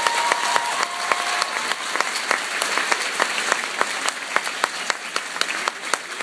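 Audience applauding in a large hall: a dense patter of many hands clapping that thins a little toward the end.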